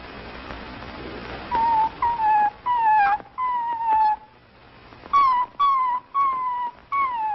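Dog whimpering: a string of short, high, slightly falling whines in two runs of about four, the last one drawn out.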